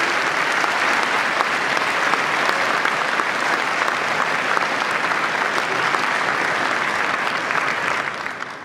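Large audience applauding steadily in a hall, a dense patter of many hands clapping that dies away near the end.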